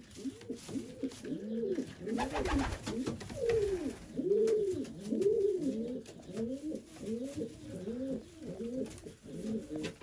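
Racing pigeons cooing, several birds overlapping with rising-and-falling coos, which quicken to about two or three short coos a second in the second half.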